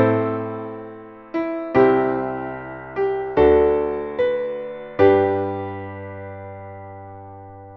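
Solo piano accompaniment with no vocals, playing slow chords, some with a low bass note. The last chord is struck about five seconds in and left to ring and fade away.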